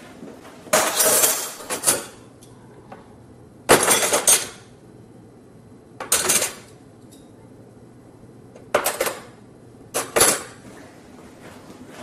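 Metal silverware clattering in five short bursts a couple of seconds apart, as handfuls are taken from a dishwasher's cutlery basket and dropped into a drawer's silverware tray.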